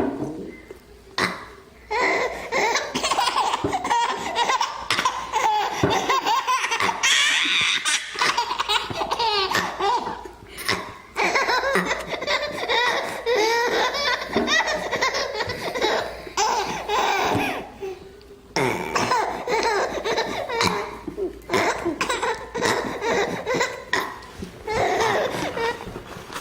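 A baby laughing again and again, with short pauses, set off by an older child's fake burps.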